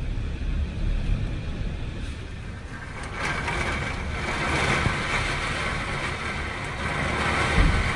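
Thunderstorm downpour with gusting wind: a heavy rain hiss over a low, fluttering rumble. The rain grows louder about three seconds in.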